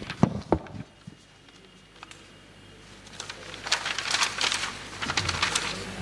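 Paper rustling and crinkling as a book or sheets are handled. There are a few light clicks near the start, and a dense flurry of crisp crackles from about halfway in.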